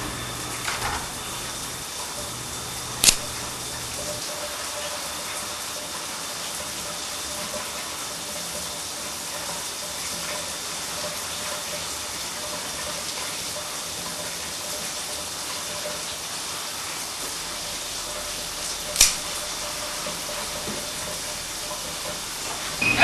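Shower running: a steady hiss of water spray, broken by two sharp clicks, one about three seconds in and one a few seconds before the end.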